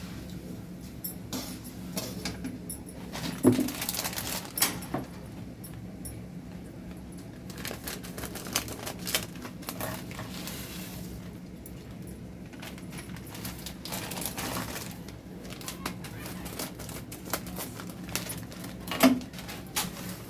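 Irregular clinks and scrapes of a spoon against a pan or bowl, with a few rustling swishes, as puffed rice is mixed, over a steady low hum. Two sharper knocks stand out, a few seconds in and near the end.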